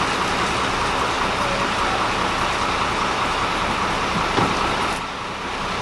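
Steady drone of street traffic and idling vehicle engines, with a short knock about four seconds in and a slight drop in level near the end.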